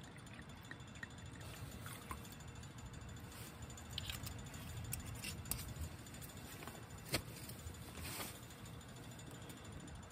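Red wine poured from a bottle into a stainless steel sierra cup, then small clinks and taps as the bottle and metal cups are handled, with one sharp click about seven seconds in. A low steady rumble lies underneath.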